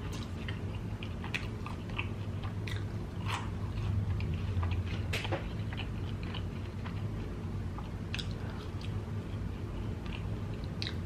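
Close-miked chewing of crispy fried egg roll, with sharp, irregular crunches every second or two over a low steady hum.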